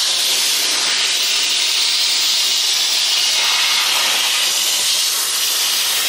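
Atrix Omega HEPA pest vacuum running steadily, a continuous airy hiss of suction through its narrow nozzle as it is drawn along a window sill.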